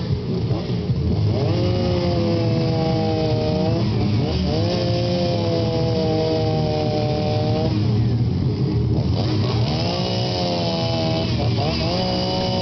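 Two-stroke chainsaw running at high revs while carving wood. The engine pitch climbs and holds three times, easing off briefly between the runs.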